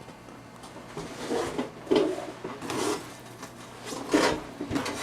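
Handling noises: several short rustles and rubs, the loudest about two seconds in and just after four seconds in.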